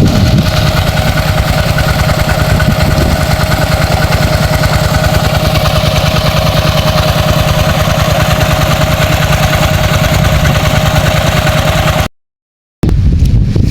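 Small engine running a water pump steadily at constant speed, draining a pond. About twelve seconds in, the sound cuts off abruptly.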